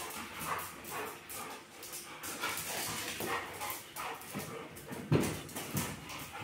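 Two golden retrievers play-fighting, growling and whining, with their claws clicking on a tile floor. One louder, lower sound comes about five seconds in.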